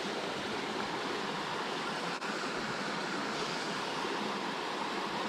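Steady sound of a small creek's water running over rocks.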